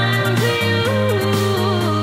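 Background music: a melody line over sustained instrumental backing and a steady bass.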